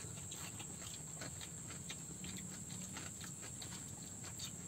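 People eating with their hands: soft, scattered clicks and smacks of chewing and of fingers picking food from rice and a metal tray, over a steady high-pitched hiss.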